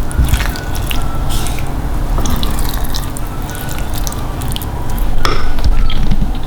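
Thick chilli paste cooking in a small pan: many small pops, plops and clicks, irregular throughout, over a steady low hum.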